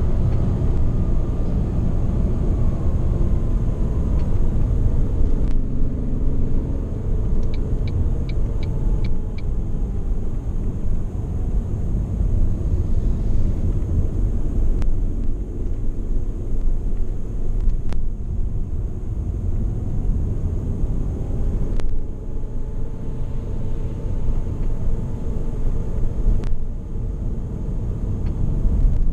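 Ford Mondeo ST220's 3.0 V6 running quietly under light load, heard from inside the cabin over a steady low rumble of road and tyre noise, its pitch drifting slowly down and up with speed. A quick run of about six light ticks comes about a quarter of the way in, and a few single sharp knocks come later.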